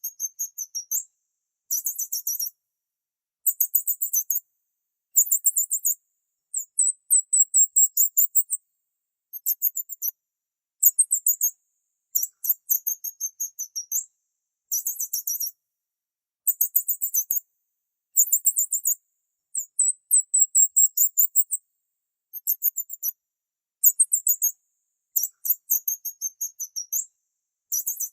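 Small birds chirping in very high-pitched bursts of rapid notes, a burst every second or two with silence in between.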